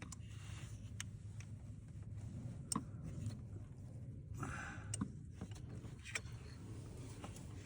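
Scattered light metallic clicks of a socket wrench and socket on the oil filter housing of a BMW B58 engine as it is slowly loosened, with a short breathy sound about four and a half seconds in.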